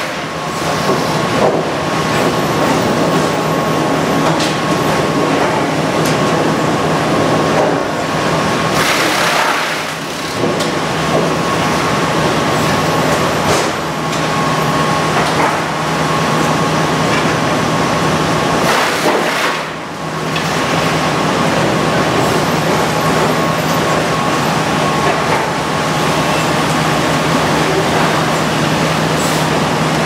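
Hardwood sawmill machinery running steadily: the log carriage and its hydraulics working a large oak log, over a constant machine hum. Brief louder rushes of noise come about 9 and 19 seconds in, each followed by a short dip.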